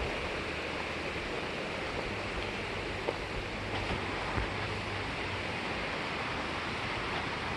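Steady rushing of fast-flowing floodwater in a river, with a faint low hum underneath and a couple of faint knocks near the middle.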